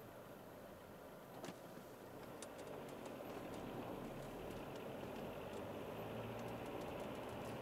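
Alfa Romeo 159 1.9 JTDM four-cylinder turbodiesel and road noise heard from inside the cabin while driving, a steady hum that grows a little louder from about three seconds in. A single short click about a second and a half in.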